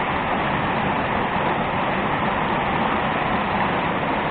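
Steady rushing of falling water, an even noise with no breaks or changes in level.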